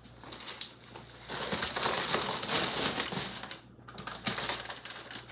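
Shipping packaging being handled and crumpled: crackling plastic and paper wrapping, loudest through the middle, with a brief pause about two-thirds of the way through.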